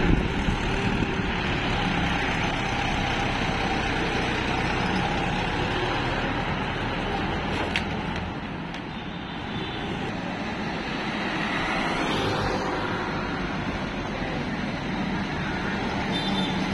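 Farm tractor's diesel engine running steadily as it tows a loaded trailer along the road, with road noise.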